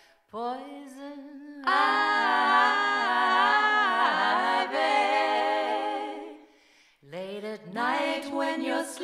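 Three women singing a cappella, holding a sustained sung chord in harmony with no words caught. It comes in softly, swells loud about two seconds in, fades out past the middle, and new sung notes start near the end.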